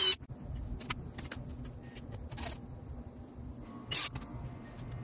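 Scattered sharp clicks and knocks, the loudest right at the start and about four seconds in, from hands handling the wiring and plastic cable clips under a boat console.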